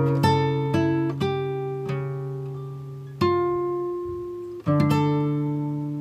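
Background music of plucked strings: notes and chords struck every second or so and left to ring and fade, with fresh strikes about three seconds in and again near five seconds.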